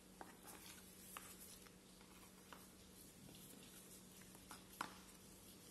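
Near silence with a few faint, light clicks and taps of small parts being handled, a nut going into the slot of a 3D-printed plastic sensor clamp, the clearest just before the end; a faint steady low hum underneath.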